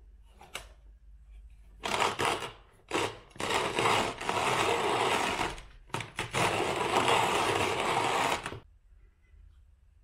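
Old wooden box-style hand coffee mill being cranked, its burrs crunching coffee beans in a long stretch of grinding noise. The grinding starts about two seconds in, halts briefly twice, and stops shortly before the end.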